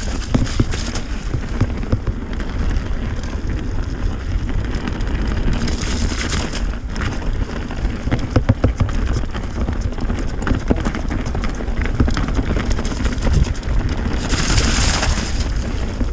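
Mountain bike ridden fast down a muddy forest trail: a steady rumble of tyres and wind on the mic, with the bike clattering and knocking over roots and bumps. There are two brief hissy rushes, about six seconds in and near the end.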